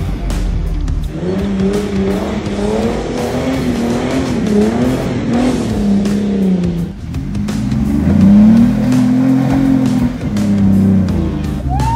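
Jeep engines revving hard in repeated surges, the pitch climbing and falling, with wheels spinning in loose dirt on steep off-road climbs.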